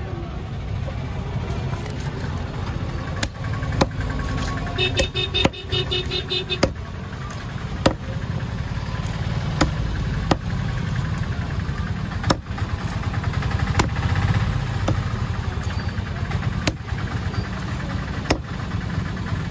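Heavy knife chopping a large fish into steaks on a cutting block, a sharp chop every second or two, over a steady low engine rumble.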